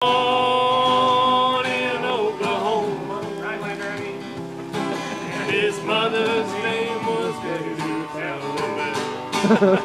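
Acoustic guitars playing a country-style campfire song, with singing. A chord is held for about the first second and a half before the song moves on.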